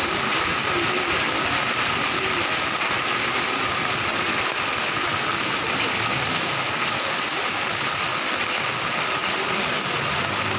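Heavy monsoon rain pouring steadily onto a flooded street, an even, unbroken hiss of falling water.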